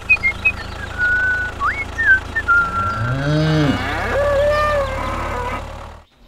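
Cattle mooing, with a long bending moo about three seconds in and a second moo after it, over a steady low engine-like hum. High whistled chirps come in the first couple of seconds.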